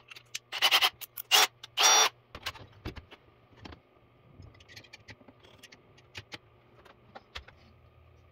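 A cordless drill with a diamond hole saw spun up in three short bursts in the first two seconds, then scattered clicks and knocks as clamps are fitted around a glass bottle.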